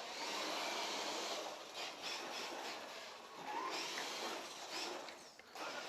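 Axial SCX10.2 RC crawler with a 7.5-turn brushless motor driving: motor and drivetrain whirring with tyre noise, swelling and easing with the throttle.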